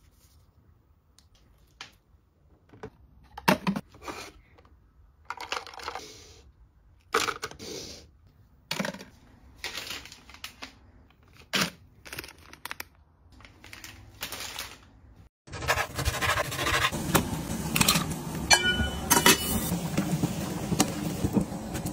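A series of short, separate handling sounds: plastic tubes and packets crinkling, clicking and being set down. Then, about two-thirds of the way in, the sound changes abruptly to the continuous bubbling of a pot boiling on a stove, with small clicks in it.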